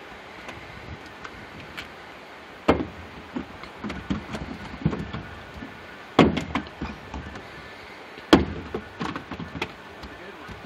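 Clunks and knocks from gear and hands at work on a metal riverboat: three loud knocks a few seconds apart, with smaller clunks between them, over a steady rush of river water.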